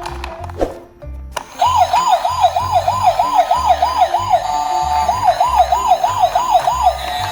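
A fast wailing siren whose pitch rises and falls about three times a second. It starts about a second and a half in and briefly holds a steady tone midway, over background music with a steady beat.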